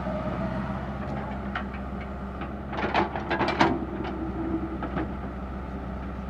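Komatsu PC60-5 excavator's diesel engine running steadily, with a quick run of knocks and scrapes about halfway through as the machine works hard soil.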